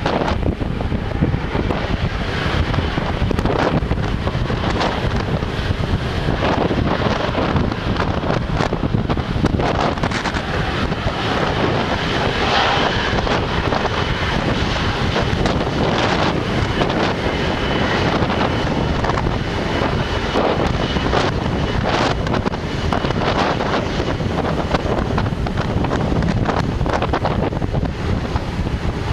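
Strong wind buffeting the microphone, over the steady low run of a China Southern Airbus A330's jet engines as it taxis on the runway; a faint high engine whine comes through in the middle.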